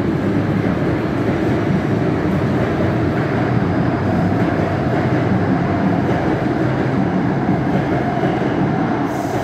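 Rotem-built K-Train electric multiple unit pulling out of an underground station, its carriages running past close by with a steady, loud noise of wheels on rail.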